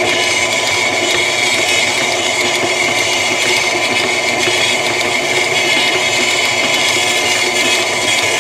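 KitchenAid stand mixer running steadily, its dough hook kneading a stiff dough into a ball: a constant motor whine.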